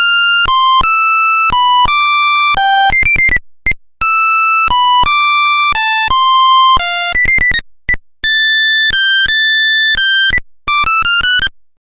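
Nokia 1100 monophonic ringtone playing a quick melody of single buzzy beeping notes, one pitch at a time with sharp starts and short gaps, stopping just before the end.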